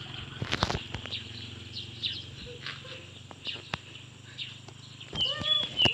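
Outdoor ambience of insects chirring steadily, with scattered short clicks and a person's voice calling out briefly near the end.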